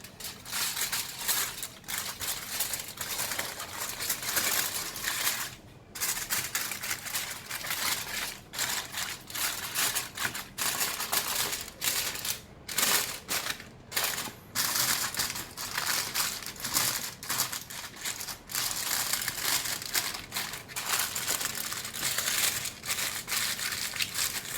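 Aluminum foil crinkling and crumpling over and over as it is folded and pressed around a stuffed chicken.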